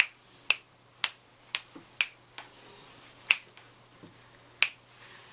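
A string of sharp finger snaps, about two a second at first, then further apart.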